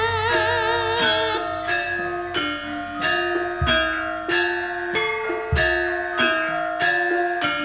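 Javanese gamelan music: bronze metallophones strike a steady run of ringing notes, with deep low strikes every couple of seconds. A held, wavering note carries over the opening second or so, then fades.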